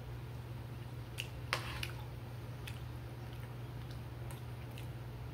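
Eating with a fork from a plate: a few short clicks of the fork on the plate and of chewing, the loudest about a second and a half in, over a steady low hum.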